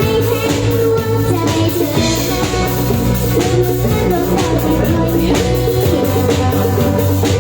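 A live band playing loud music, with drum kit, bass and guitar, and a voice singing.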